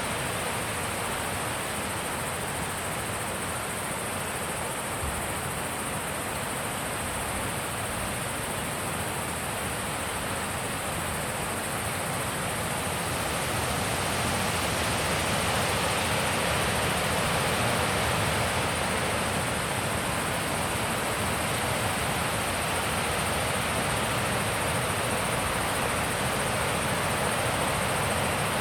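Wind blowing steadily, growing stronger about halfway through.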